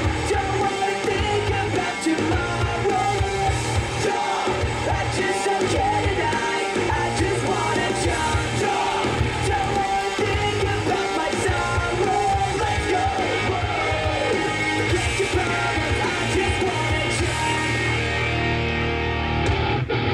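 Rock song playing loud and steady, with a singer over a driving beat.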